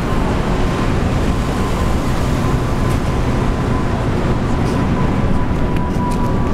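Steady city street traffic noise as a Toronto TTC streetcar passes along the street.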